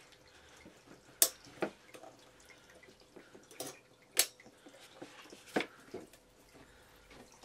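Hollow plastic Santa boots being pushed and clipped onto the figure's leg poles: a handful of separate sharp plastic clicks and knocks, the loudest about a second in and about four seconds in.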